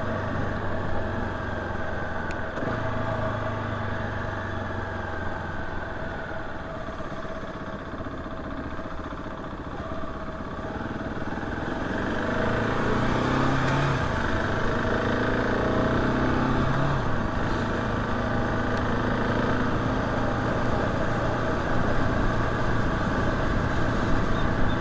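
KTM 690 SMC R supermoto's single-cylinder engine running under way, its pitch sweeping up and down as the bike pulls away and changes gear about halfway through, and running a little louder after that.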